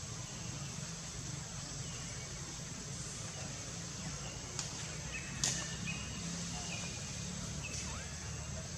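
Baby macaque giving a few short, faint, high squeaks, one rising in pitch near the end, over a steady high-pitched drone, with two sharp clicks about five seconds in.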